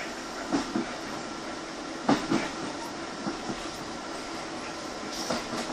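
Inside a Class 150 Sprinter diesel multiple unit on the move: a steady running rumble and hum, with four pairs of clacks as the wheels pass over rail joints.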